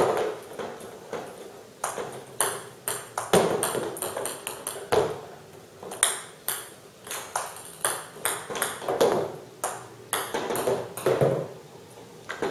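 40 mm table tennis balls being served over and over: quick sharp clicks of paddle strikes and bounces on the table, several a second, mixed with hollower knocks every second or two as balls strike and roll along the corrugated-cardboard walls and ledges of the serve-practice enclosure.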